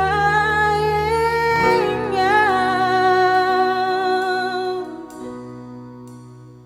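A slow worship song: a singer holds long, wavering notes over sustained chords. The voice fades about five seconds in, leaving quieter accompaniment.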